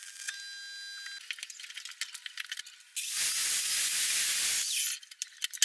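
Electric arc welding on steel: a steady electrical hum with crackling at first, then sputtering crackles. About three seconds in, an angle grinder grinds the edge of a steel brake disc, a loud, even hiss lasting under two seconds that stops abruptly, followed by a few clicks.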